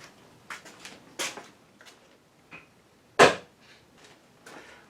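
A Jacobs chuck on its arbor rapped once against a chunk of metal to seat the No. 3 Jacobs taper: a single sharp metallic knock about three seconds in, after a few light handling clicks.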